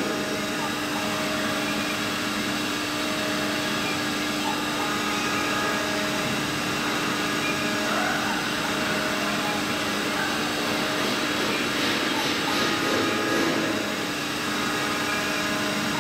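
Mini 5-axis CNC milling machine running, its spindle giving a steady whine over a constant mechanical hiss.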